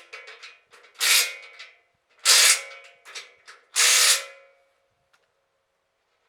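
Tools working the bolts of a steel sawmill track stop, with metal clanking and rattling: three short, loud bursts about a second and a half apart, with lighter clicks between them. The last burst leaves a faint metallic ring.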